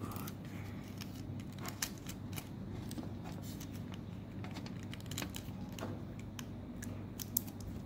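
Scattered small clicks and rustles of hands handling a cable and pressing black tape down onto the TV's metal back panel, over a steady low hum.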